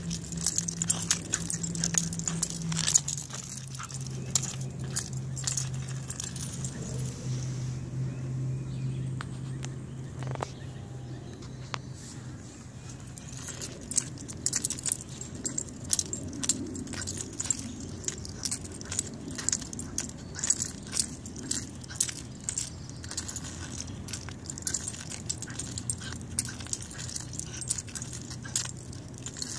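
Metal leash clip and harness hardware jingling and clinking in many quick, irregular clicks as a Shiba Inu tugs, shakes and drags its leash over asphalt.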